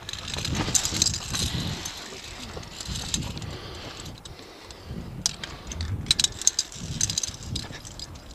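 Metal via ferrata carabiners and lanyard clinking and scraping against the steel safety cable in irregular clusters of sharp clicks, over low rumbling and bumping.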